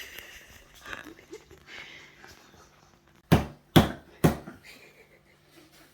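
Three sharp knocks about half a second apart, a little over three seconds in, with fainter handling sounds before them.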